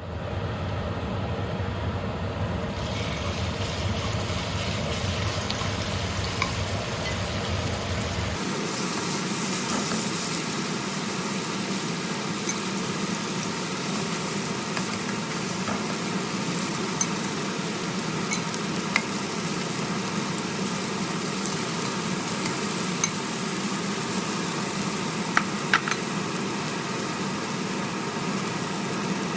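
Food sizzling steadily in a hot pan during a stir fry, with a few light clicks of a utensil against the pan. A low hum underneath stops about eight seconds in.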